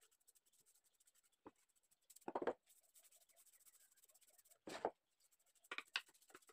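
A rag wiping finish onto wooden boards: soft, repeated rubbing strokes, with a few louder scrapes and a knock as the wooden piece is moved about on the workbench.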